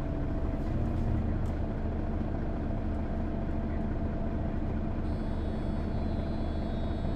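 Mercedes-Benz O530 G II articulated bus with Voith automatic gearbox heard from inside the passenger cabin: a steady hum from the engine and drivetrain at an even pitch. A faint high whine joins about five seconds in.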